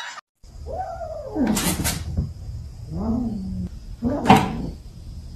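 A cat meowing twice: a long meow that rises and then falls, and a shorter, lower one about three seconds in. A sharp knock just after four seconds is the loudest sound.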